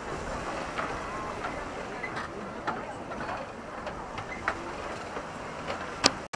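A large group walking on a wooden boardwalk: scattered footsteps and faint, indistinct chatter over a steady low rumble.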